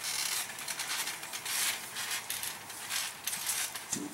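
Trampoline springs and frame creaking and rattling under a person walking across the mat, in a quick, irregular run of short creaks.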